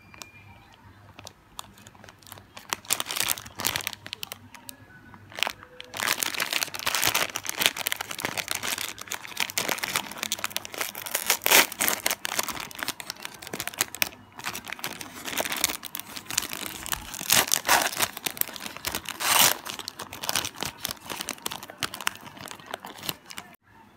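Plastic ice cream sandwich wrapper being torn and peeled open by hand, crinkling and crackling. There are scattered crinkles at first, then continuous crackling from about six seconds in, which stops abruptly just before the end.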